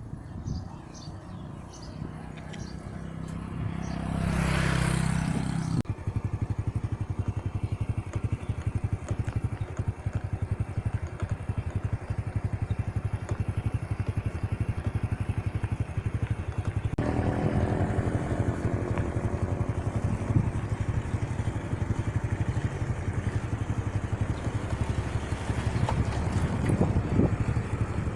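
Motorcycle engine running steadily on the road, with a louder vehicle passing about four seconds in; the sound changes suddenly twice, near six and seventeen seconds.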